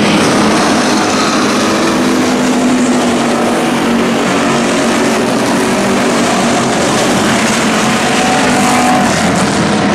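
Several dirt-track stock cars racing past with their engines running hard, a loud, steady engine drone.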